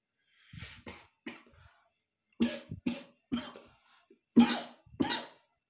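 A man coughing: a fit of about eight short, harsh coughs, the later ones louder.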